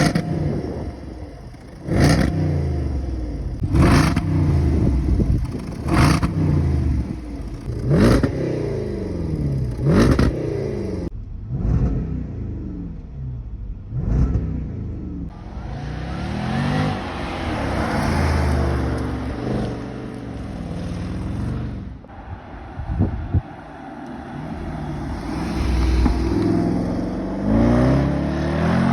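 Jaguar Ring Taxi's engine revved in sharp throttle blips about every two seconds, each dropping straight back. In the second half come longer revs that are held, then rise and fall.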